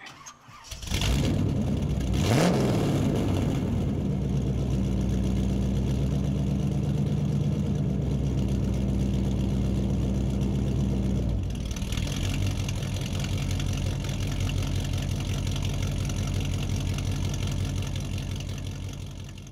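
A car engine starts, revs once, then idles steadily. About eleven seconds in, the sound changes to a thinner running note with more hiss, and it fades out at the end.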